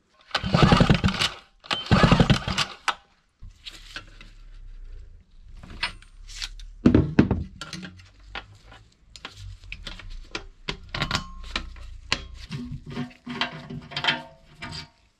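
Two loud rasping pulls of a small two-stroke generator's recoil starter, about a second each, turning the engine over with the spark plug out to check for spark. After that come light clicks, taps and knocks of hand tools, bolts and plastic covers being handled and refitted.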